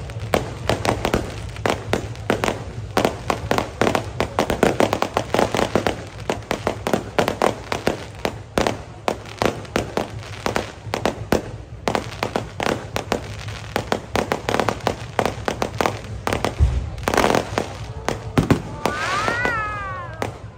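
Fireworks going off: a rapid, unbroken string of sharp bangs and crackles, with a deeper boom late on.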